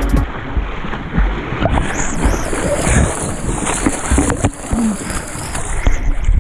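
Creek water splashing against and over a camera held at the surface, with rough, uneven rushing and low thumps on the microphone.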